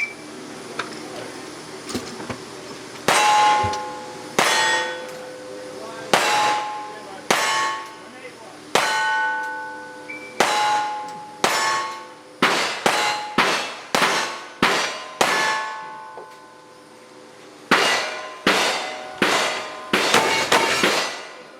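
A string of about twenty gunshots at steel targets, each sharp crack followed by the ringing clang of the struck steel plate. The shots come slowly at first, then quickly, with a short pause and a fast run near the end.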